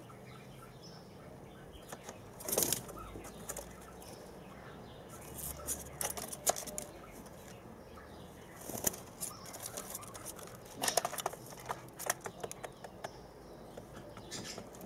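Three-week-old white dove chicks flapping their wings in the nest, in irregular short bursts of fluttering and rustling, the strongest about two and a half seconds in, at nine seconds and around eleven seconds.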